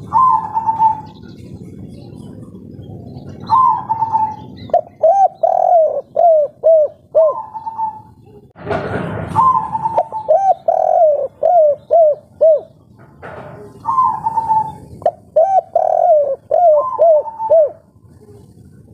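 Spotted dove of the 'kuk 3' calling type cooing in repeated phrases, each a higher opening note followed by a run of short, lower notes. A brief burst of noise about halfway through.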